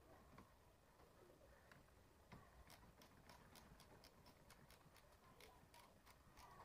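Faint, quick clicking of a ratchet wrench with a 10 mm socket working a car battery terminal nut, about four or five clicks a second, starting with a single knock a little over two seconds in.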